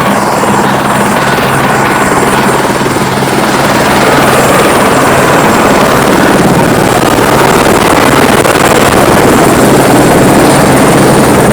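Helicopter running loud and steady: a dense rotor and engine noise with a thin, steady high whine over it, growing slightly louder about four seconds in.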